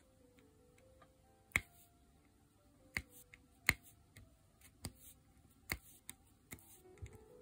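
Diamond painting pen pressing resin drills onto the sticky canvas, a small sharp click with each drill placed, about eight at an uneven pace of roughly one a second. Soft background music plays faintly underneath.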